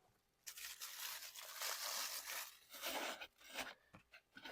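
Packing material rustling and tearing in bursts as a statue piece is pulled out of its packaging, with a few short scrapes near the end.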